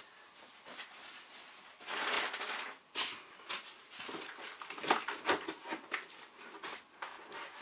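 Packing materials being handled: plastic sheeting and cardboard rustling and scraping, with a few sharp knocks as pieces are moved about.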